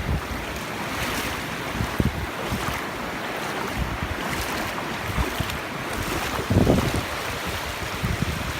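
Wind buffeting the microphone over the steady wash of waves, with irregular low gusts and a stronger gust about two-thirds of the way in.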